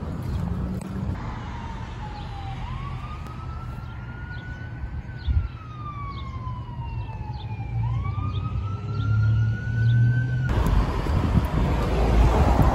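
Emergency vehicle siren on a slow wail, rising and then falling twice, over a low rumble. About ten seconds in it cuts off abruptly to wind and traffic noise.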